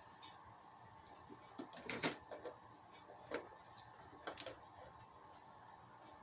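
Scattered light knocks and clicks of small objects being picked up and moved while someone rummages through tools, the loudest about two seconds in, over a faint steady hum.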